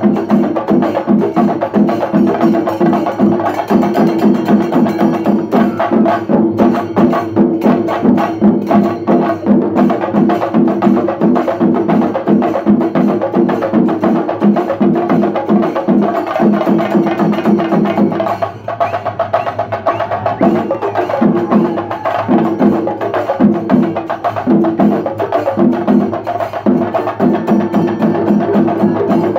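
Shinkari melam ensemble of Kerala chenda drums beaten rapidly with sticks, a loud dense rhythm. A little past halfway the playing thins out for a moment, then comes back in shorter, choppier phrases.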